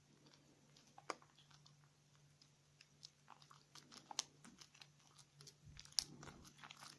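Wet bar of 72% laundry soap being lathered in the hands: quiet, sticky crackling and popping, with sharper clicks about a second in, near four seconds and at six seconds.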